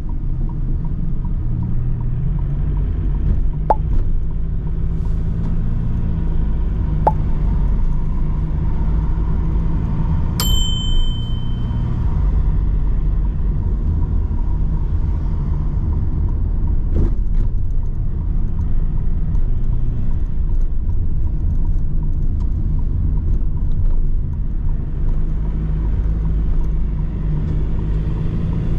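Delivery van's engine and road noise while driving: a steady low rumble whose pitch steps up and down as the engine speed changes. A few light clicks, and a short high chime about ten seconds in.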